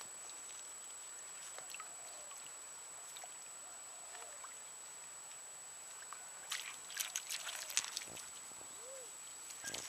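Small dog wading and splashing in shallow river water at the bank. There is a run of quick wet splashes and clicks about six and a half seconds in that lasts a second or two, and only faint sounds before it.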